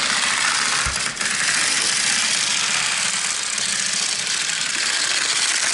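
HO scale model diesel locomotive running on the track: a steady rattling whir, with two small clicks about a second in.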